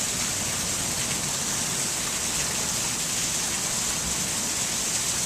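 Heavy monsoon rain pouring down in a steady hiss.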